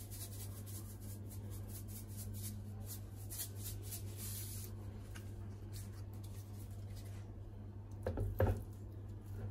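Ground salt shaken from a plastic salt shaker over a raw ribeye steak: a quick run of light ticks and grain patter that stops about four and a half seconds in. Just after eight seconds a short, louder handling sound as a hand presses the meat.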